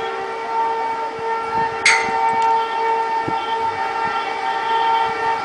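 WCAM-3 dual-current electric locomotive's air horn blaring in one long, steady blast. A sharp click cuts through about two seconds in.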